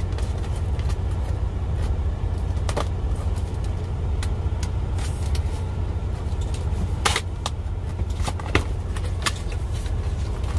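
Steady low rumble of a truck's engine running, heard inside the cab, with a cardboard box being opened over it: flaps pulled and packaging handled, giving scattered clicks and scrapes, the sharpest about seven and eight and a half seconds in.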